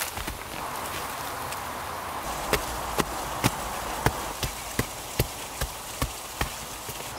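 Wooden digging stick striking and prying into a clay bank: sharp knocks about twice a second, starting about two and a half seconds in.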